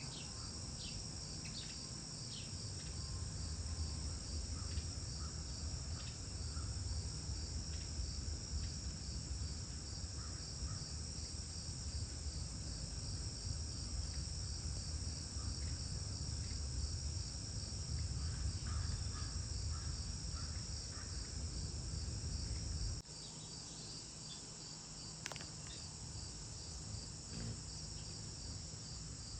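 Steady, pulsing high-pitched chorus of insects such as crickets, with short bird chirps scattered through it. A low rumble underneath stops abruptly about three-quarters of the way through.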